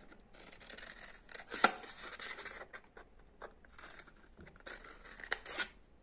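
Small scissors snipping through blue paper in a few separate cuts, the sharpest click about one and a half seconds in and a quick run of smaller snips near the end.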